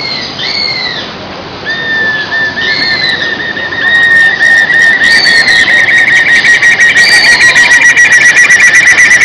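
Black-and-yellow broadbill singing: a series of clear whistled notes that speeds up into a fast, steady trill, growing louder.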